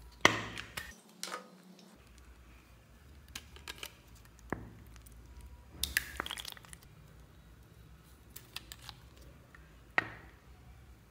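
Handling noise of slime-making: scattered sharp clicks and light knocks of plastic containers against a plastic tray as coloured slime is squeezed onto clear slime. The loudest knocks come just after the start, about six seconds in and near the end.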